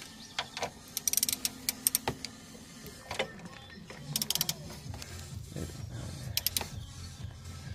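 Metallic clicking from a ratchet and socket in three short runs as the socket is fitted and worked on a steering tie-rod end nut.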